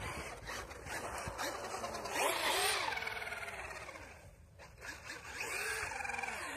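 Traxxas Maxx 4S RC monster truck's brushless motor and drivetrain whining as it accelerates and backs off. The pitch rises and falls about two seconds in, and again near the end.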